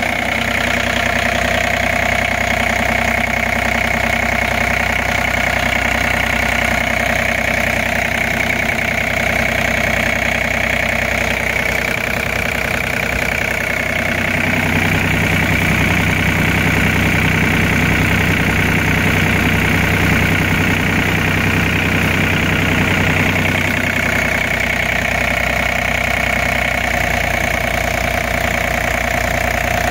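Komatsu PC30-5 mini excavator's diesel engine idling steadily, heard close up with the engine cover open. Its low hum changes in tone for about ten seconds midway, then settles back.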